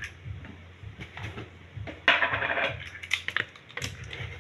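Kitchen utensil handling: scattered light clicks and clinks of a spoon and containers, with a short scraping rustle about two seconds in.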